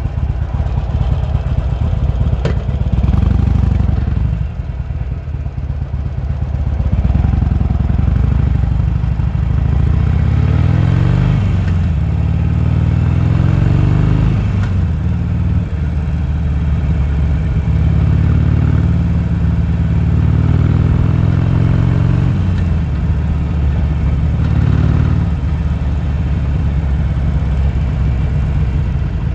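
Harley-Davidson Sportster's air-cooled V-twin engine running on the move, its pitch rising and falling a few times as the throttle is opened and closed.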